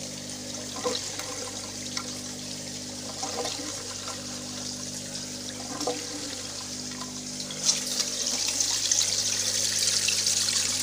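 Water gurgling down a grow bed's bell siphon, made from a plastic bottle, as the siphon runs and the bed drains fast. From about eight seconds in, louder splashing as the drained water gushes from a pipe into the fish tank.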